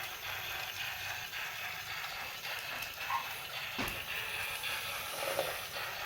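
Plarail Percy toy train running on plastic track: its small battery motor and gearbox whirring steadily, with scattered clicks and a sharper click about four seconds in.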